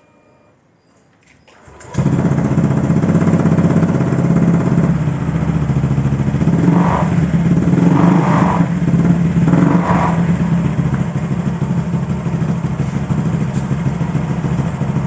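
Honda Vario 150 scooter's single-cylinder four-stroke engine, breathing through a freshly fitted ABF Racing 'standard racing' aftermarket exhaust. It starts about two seconds in and idles, with three short throttle blips in the middle.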